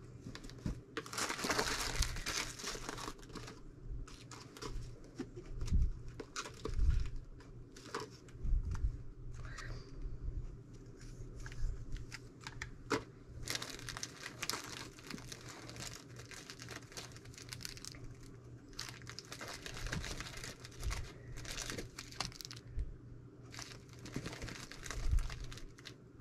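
Fabric and sewing trim being handled and rearranged on a table: rustling and crinkling in spells, with a few soft knocks.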